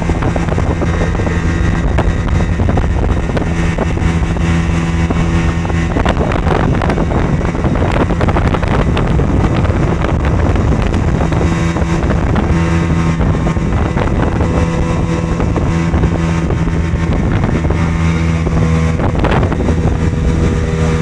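A watercraft engine running steadily under way, its pitch shifting a few times as the throttle changes, with wind buffeting the microphone.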